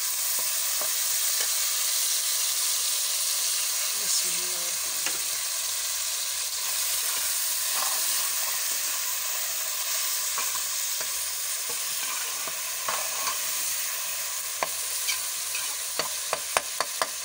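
Chopped tomatoes frying in hot ghee with browned onions in a metal pot: a steady sizzle while a metal ladle stirs and scrapes the mixture, with a quick run of sharp clicks near the end.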